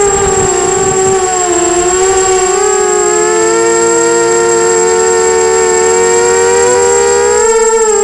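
Brushless motors and propellers of a 250-size FPV racing quadcopter whining in flight, heard through its onboard camera. The pitch shifts as the motors change speed, and about two seconds in the tones drift apart, one rising and one falling. A thin steady high tone runs above, and wind rumbles on the microphone in the first second.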